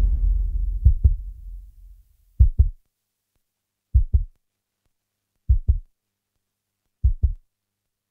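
Heartbeat sound effect: five slow, paired low thumps (lub-dub) about a second and a half apart, after a low music track dies away in the first two seconds.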